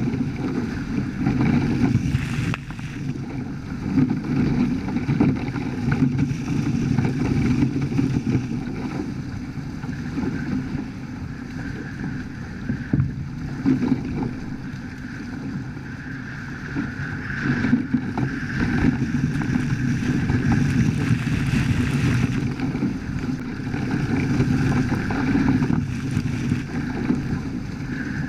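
Water rushing past the hulls of a Hobie Cat 14 catamaran under sail, with wind buffeting the microphone. It is steady, swelling and easing every few seconds.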